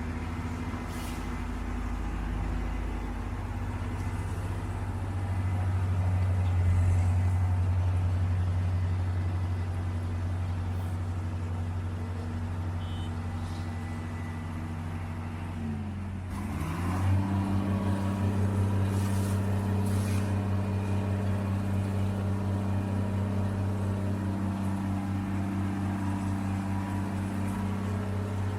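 Diesel engine of heavy road-construction machinery running steadily. About halfway through its pitch dips briefly and comes back up, and it then runs on with an even pulsing beat.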